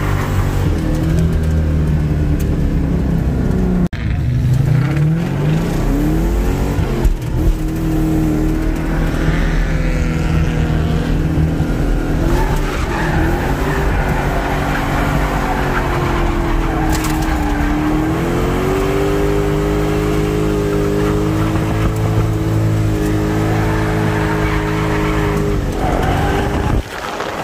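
Mustang's engine held at high revs through a drift, with tyres squealing and skidding. The engine note drops sharply about four seconds in and again near the end, then climbs back. Heard from inside the car's cabin.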